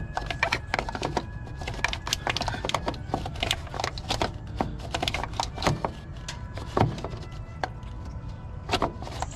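A hand tool clicking and knocking against metal in quick, irregular strokes as a part on the truck is loosened, over a steady low hum.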